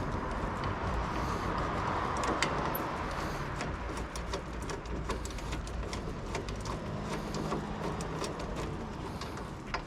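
Workshop background noise with many scattered light clicks and knocks.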